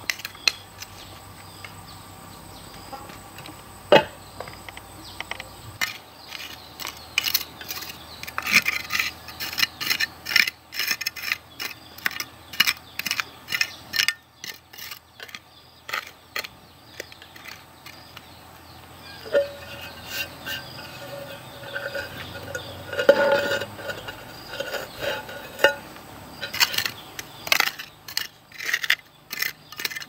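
Hand trowel scraping soil and stone pavers clacking as they are set down, an irregular run of scrapes and clicks with a few sharper knocks.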